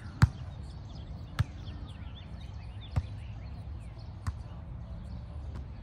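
A volleyball being hit four times: sharp smacks of hands on the ball about a second and a half apart, the first the loudest.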